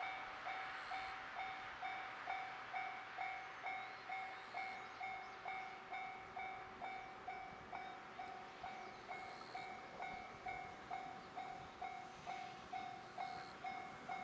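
Japanese railway level-crossing warning bell ringing steadily, about two dings a second, with passing-train rail noise beneath.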